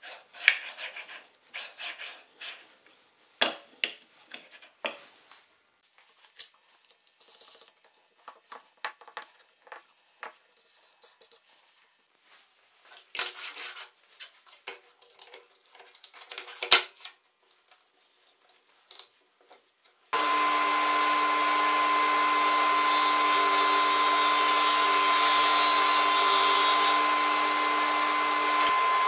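Plywood jig pieces being handled, slid and set down, with scattered knocks and rubbing for about twenty seconds. Then a ProShop II table saw's motor comes on suddenly and runs steadily, a loud even hum with a high whine, without cutting.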